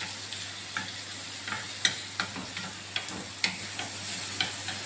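A spatula stirs and scrapes chopped vegetables and shrimp in a frying pan over a gas flame. The food sizzles steadily under sharp taps of the spatula on the pan, about two a second.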